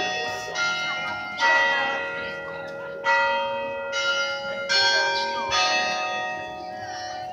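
Tower bells struck one after another in a melodic sequence, each stroke a different note that rings on and overlaps the next, about seven strokes with a short pause in the middle.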